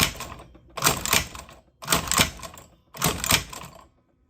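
Cowboy Outlaw hand-crank leather sewing machine stitching thin leather: a clattering stroke of needle and mechanism about once a second, four strokes in all, each stroke pushing one stitch through.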